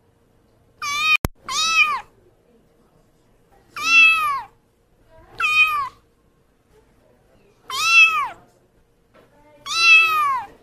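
Kitten meowing six times, high-pitched calls that rise and fall, one every second or two. A brief sharp click about a second in.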